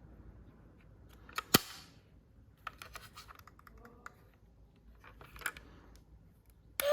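Light scattered clicks and taps of plastic toy parts and packaging being handled, with one sharper click about one and a half seconds in. An electronic toy police siren starts right at the end.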